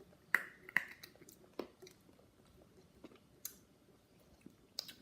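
A person biting into and chewing a piece of candy, with a few short, crisp crunching clicks spread over a few seconds.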